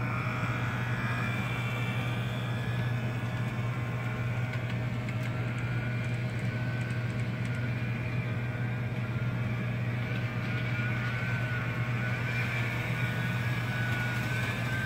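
Bachmann Soo Line F-unit model diesel locomotive running on steel track: a steady low electric-motor hum with a gear whine that wavers in pitch, most in the second half. The owner puts its noise down to the motor possibly not being broken in yet.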